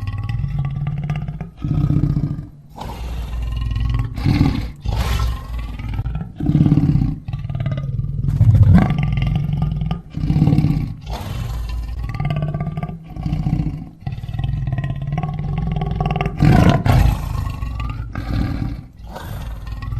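Lion roaring: a series of roars, one after another with brief breaks between them.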